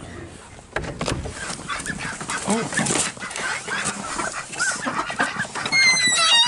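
Geese honking and calling, a jumble of short calls from about a second in, with a loud, falling honk near the end.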